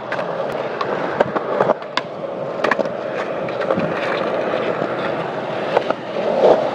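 Skateboard wheels rolling on concrete: a steady rolling rumble broken by scattered sharp clicks and knocks.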